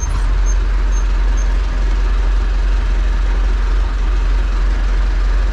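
Renault 70-34 tractor's diesel engine running steadily at low revs.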